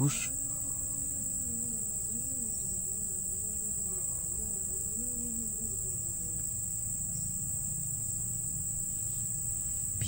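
Steady, high-pitched chorus of crickets or similar insects. Under it, a faint wavering low sound fades out about six seconds in.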